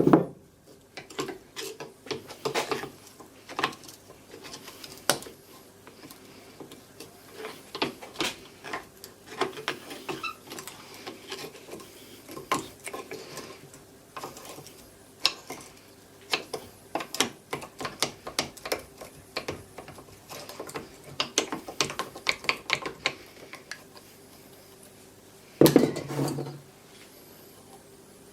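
Metal parts of a WWI British No. 80 Mk 6 time fuze being taken apart and handled: irregular metallic clicks, clinks and knocks as the pieces are worked and set down, with a louder cluster of knocks near the end.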